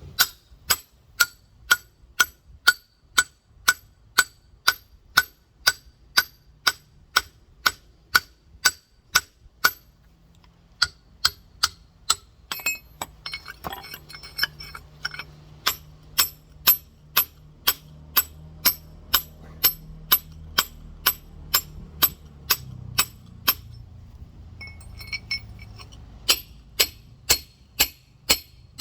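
Steel rock hammer striking a large geode over and over, about two sharp ringing taps a second, with short pauses about ten seconds in and again near the end. The steady tapping drives a started crack through the stone to shear the geode apart.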